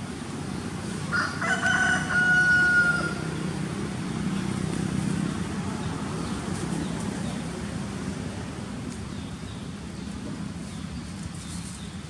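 A rooster crows once, a drawn-out call of about two seconds, over a steady low rumble.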